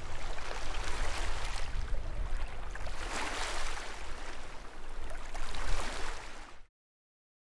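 Sea water washing and surging, with a low rumble underneath, swelling twice and then cutting off abruptly to silence near the end.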